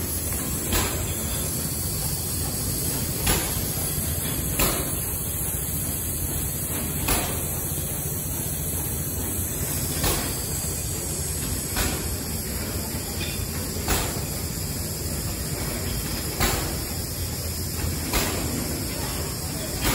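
Stationary sawmill steam engine running: a steady steam hiss over a low rumble, with a short sharp beat every one to two seconds.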